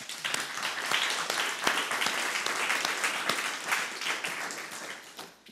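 Audience applauding, a dense patter of many hands clapping that thins out and fades away over the last second or so.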